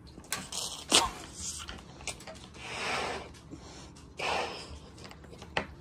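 Air pushed into a balloon being inflated, in two long breathy gusts about three and four seconds in. Two sharp knocks come in the first second.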